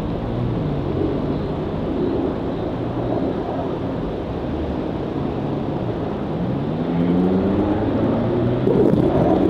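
Road traffic going by: a steady rumble of passing vehicles, with one engine rising in pitch about two-thirds of the way through.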